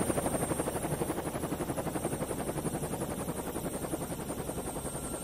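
Radio-controlled helicopter's rotor and motor heard close up from its onboard camera: a fast, even rotor chop with a faint high motor whine, slowly fading.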